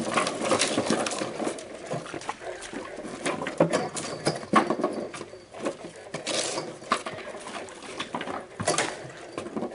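Irregular rustling and crackling with scattered sharp knocks and clicks, as a person steps through brush and handles sticks and a wire fence.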